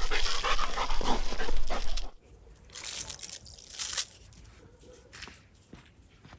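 A German shepherd panting close to the microphone, stopping abruptly about two seconds in. A few short, crackly rustles follow, quieter.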